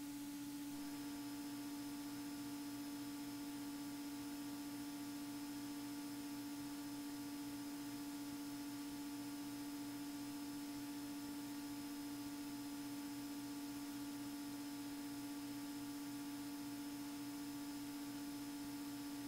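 Faint, steady electrical hum with a low buzzing tone and a light hiss, unchanging throughout.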